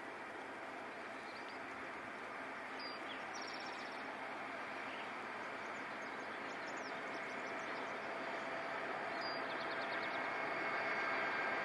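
Three Conrail diesel locomotives leading a freight train, heard from a distance as a steady rumble that grows slowly louder as the train approaches. A bird chirps briefly about three seconds in and again about nine seconds in.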